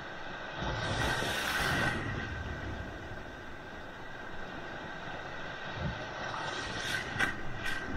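Sea waves breaking on a beach. A wash of surf swells up about half a second in and dies away over the next few seconds, and a couple of short, sharp splashes come near the end.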